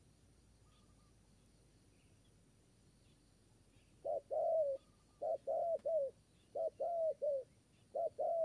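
Spotted dove cooing: four short phrases of two or three low notes each, beginning about four seconds in after a quiet start.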